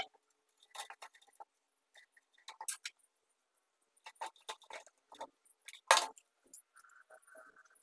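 Small metal clicks and clinks of a screwdriver driving screws into the steel wire grille of an electric insect killer, with one sharper knock about six seconds in.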